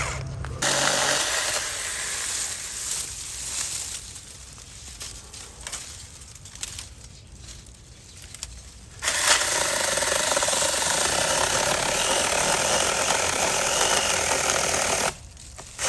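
Saker mini cordless electric chainsaw running in bursts: a short run in the first couple of seconds, then quieter crackling, then a steady run of about six seconds that cuts off suddenly near the end.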